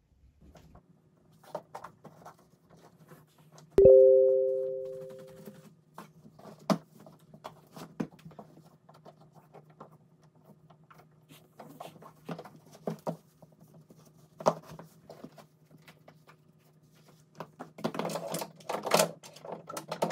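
Footwear being put on over a tiled floor: fabric rustling, and boots and laces handled with scattered knocks and clicks, over a faint steady hum. About four seconds in, a single loud ring sounds and fades out over about two seconds. Near the end comes a denser burst of shuffling and knocks as the boots go on.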